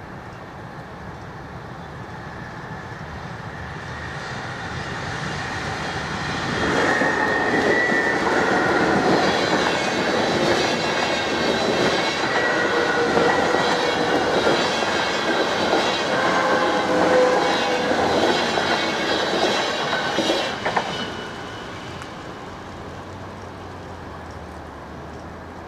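NS InterCity electric train passing over a level crossing. Its noise builds over the first few seconds and stays loud for about fifteen seconds, with wavering high squealing tones from the wheels over the running noise. It dies away quickly about five seconds before the end.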